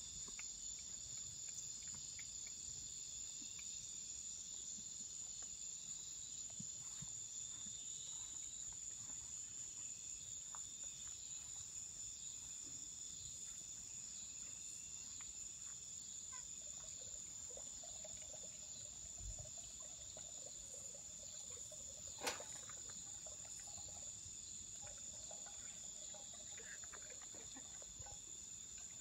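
Night insect chorus, crickets among them: a faint, steady high-pitched trill, with a single sharp click about three-quarters of the way through.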